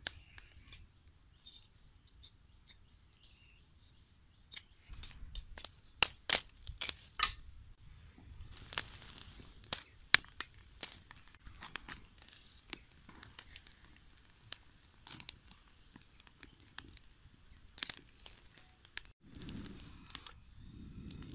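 A small fire of dry twigs crackling, with sharp irregular snaps and pops that start about five seconds in and are thickest in the middle. Near the end there is a softer rushing noise.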